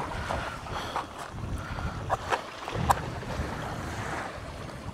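Wind buffeting the microphone over distant surf, with a few short sharp scrapes of a wooden match being struck on its box, the loudest two a little over halfway through.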